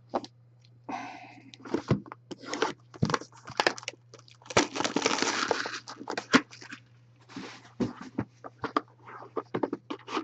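Cardboard and plastic packaging rustling, crinkling and tearing in quick bursts as a box of trading cards is opened, with a longer tearing stretch a little before the middle, over a steady low electrical hum.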